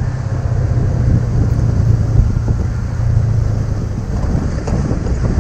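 Motorcycle engine running steadily while riding, with wind rumbling on the microphone.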